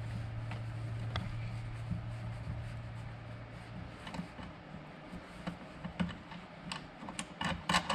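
Light metallic clicks and scrapes from a screw-driven brake rivet tool held in a bench vise as it is worked by hand to push old rivets out of aircraft brake pads. The clicks come more often in the second half. A low steady hum runs underneath and stops about four seconds in.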